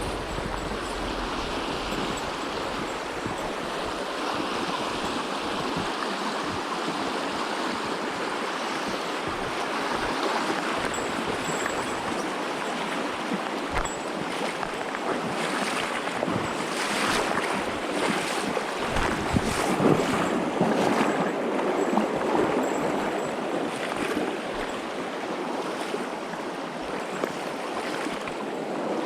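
Mountain stream water rushing steadily, with a few short, sharper sounds in the middle of the stretch.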